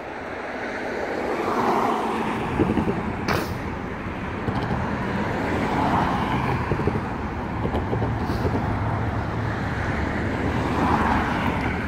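Road traffic passing close by: cars driving past one after another, their tyre and engine noise swelling and fading three times.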